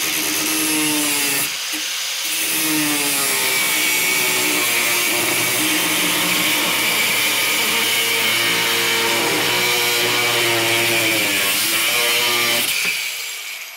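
Milwaukee 4-1/2-inch small angle grinder cutting through a thin piece of metal with an abrasive wheel. It is loud and continuous, and the motor pitch dips and recovers as the wheel bites. Near the end the cut finishes and the grinder winds down.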